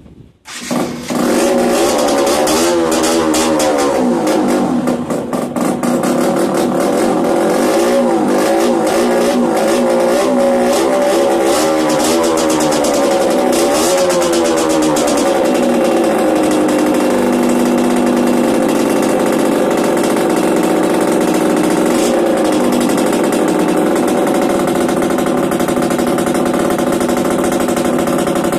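Yamaha DTR 125 single-cylinder two-stroke engine, breathing through a Big One expansion-chamber exhaust, fires up about half a second in on its first start after a new CDI unit was fitted. It is blipped and revved repeatedly, pitch rising and falling, for about fifteen seconds, then settles into a steady fast idle.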